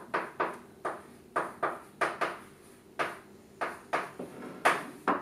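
Chalk writing on a chalkboard: a quick, irregular run of short taps and scratches, about three a second, as letters and symbols are put down.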